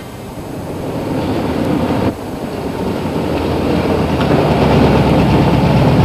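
A motor vehicle's engine running steadily: a low hum under a rushing noise. It fades up, then changes abruptly about two seconds in.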